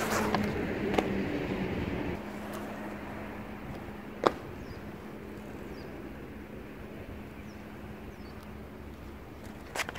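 BMX bike riding on a concrete skate park, with tyre and wind noise, a faint steady hum underneath, and one sharp knock about four seconds in as the bike lands from a hop.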